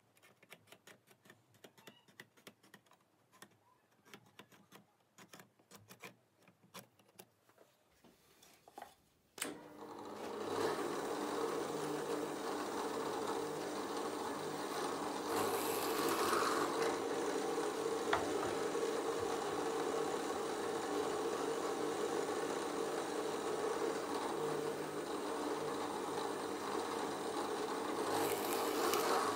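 Benchtop drill press motor starts running about a third of the way in, steady and humming, as its bit bores holes for the key pilots in wooden piano keys; the cutting noise gets louder twice, midway and near the end. Before it, near silence with a few faint ticks.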